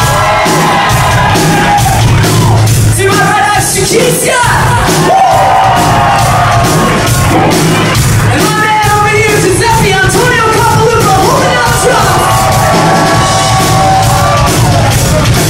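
Live rock band playing loud, with several voices singing over electric guitar, bass, keyboards and a steady drumbeat, in a large hall.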